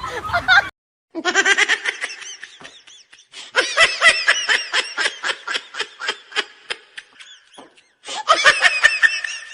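Laughter, high-pitched and quickly repeated in three stretches with short gaps between them, most likely a laughing sound effect added in the edit.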